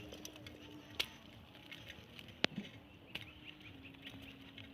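Quiet outdoor background with a faint steady low hum and two sharp clicks, one about a second in and one near the middle.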